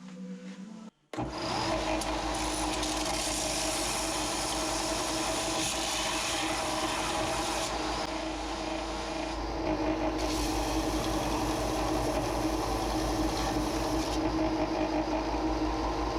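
A shop power tool starts about a second in and runs steadily as it works the piece, its hiss thinning and coming back a few times.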